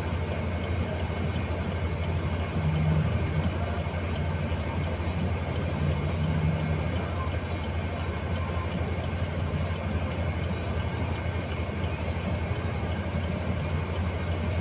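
A heavy truck's diesel engine idling, heard from inside the cab: a steady low hum with an even hiss over it.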